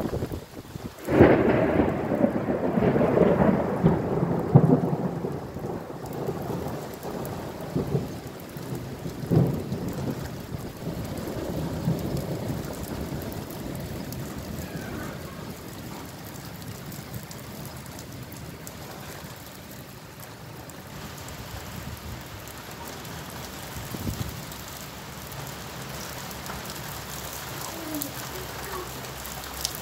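Thunder: a loud clap about a second in, rumbling on in several swells for about ten seconds and fading. Steady rain falls throughout.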